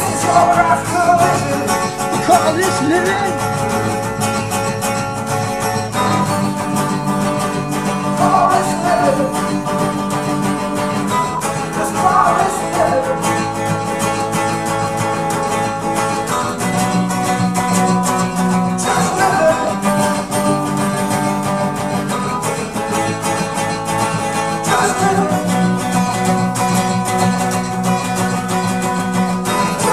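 Acoustic guitar strummed in steady chords, the chord changing every several seconds, in an instrumental stretch of a song.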